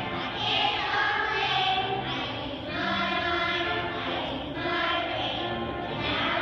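A class of kindergarten children singing together as a choir.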